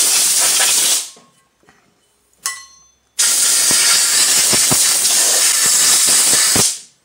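Compressed-air blow gun blasting air to clear aluminum chips from a freshly tapped hole and the vise: a short blast of about a second, then a longer blast of about three and a half seconds. A brief metallic clink rings out between the two blasts.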